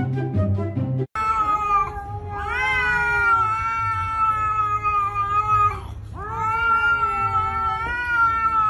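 Cat caterwauling at another cat: long, drawn-out yowls that rise at the start and are then held, a short one followed by two of about three and a half seconds each, an angry warning from a cat with flattened ears. Background music with a steady beat plays for the first second and cuts off abruptly before the yowling.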